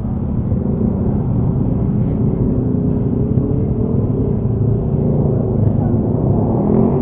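Motorcycle engines running in a slow, dense pack of motorbikes, heard from the seat of a moving motorcycle as a steady low rumble. Near the end an engine revs up with a rising pitch.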